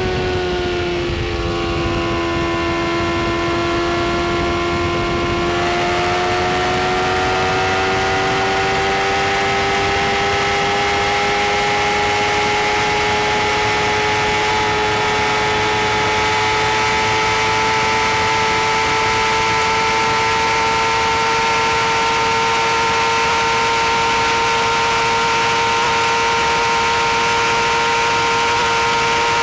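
BMW S1000 RR inline-four engine running hard at high speed with rushing wind noise. The engine note dips slightly in the first second or two, holds, then climbs slowly and steadily as the bike keeps accelerating.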